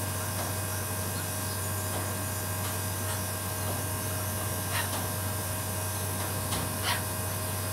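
Steady electrical hum with a buzz, plausibly from the running outdoor unit of a split air conditioner; a few faint, brief sounds near five and seven seconds in.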